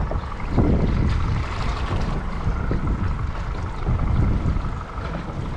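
Wind buffeting the microphone over water lapping and slapping against a small boat's hull, with a faint steady tone underneath.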